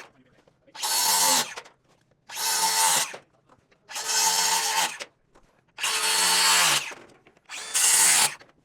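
Reciprocating saw (sawzall) cutting off wooden truss tails in five short trigger bursts of about a second each, the motor whining up and dropping away between them.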